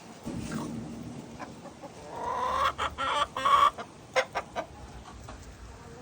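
Hens clucking while feeding, with a louder, drawn-out rising call about two seconds in, followed by a few short clucks.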